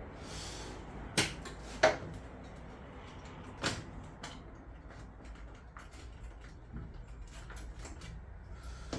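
Hands working inside a boiler casing: two sharp clicks or knocks about a second in, a third a couple of seconds later, then lighter ticks and taps of parts being handled.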